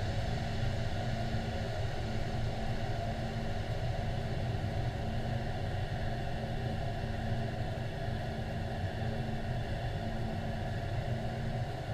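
Steady low rumble of aircraft engines heard from on board the aircraft, with a constant hum and no change through the whole stretch.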